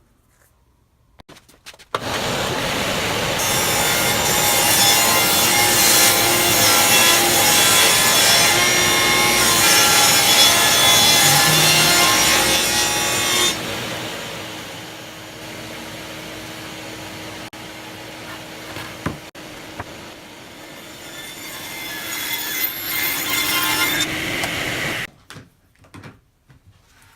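Table saw running and ripping the edge of a board clamped in a plywood edge-jointing jig. The cut is loudest for about ten seconds; the saw then runs on more quietly and cuts off suddenly near the end.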